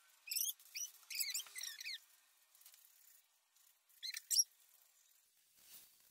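Small paint roller squeaking as it is rolled over a wall in fresh paint: quick, high chirping squeaks in strokes through the first two seconds, then again about four seconds in.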